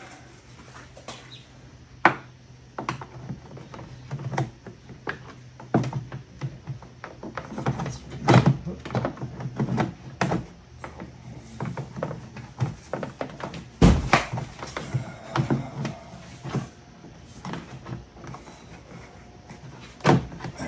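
Scattered clicks and knocks of a plastic interior trim panel being lined up and pressed back onto a Toyota RAV4's tailgate, with the loudest thump about fourteen seconds in.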